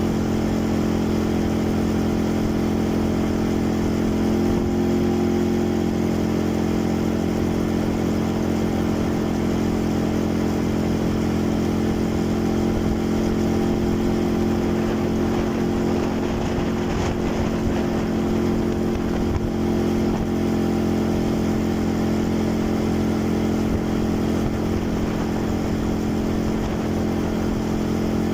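Quad bike (ATV) engine running at an even, unchanging pitch while the bike cruises along.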